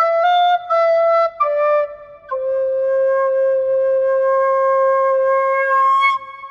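A flute playing a slow melody: three short notes, then one long held note that stops about six seconds in.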